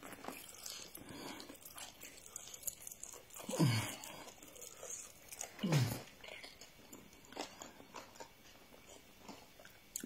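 A person chewing and biting into chicken and rice close to the microphone, with many small wet mouth clicks. Twice, about 3.5 and 6 seconds in, there is a brief louder sound with a falling pitch.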